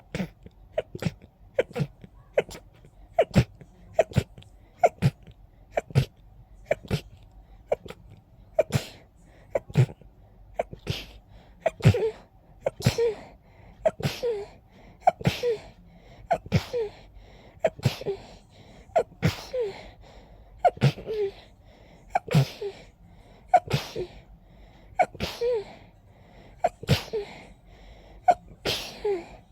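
A person's rapid pollen-allergy sneezing fit: a long run of sharp sneezes, about one a second, and from about halfway through many end in a short falling voiced sound.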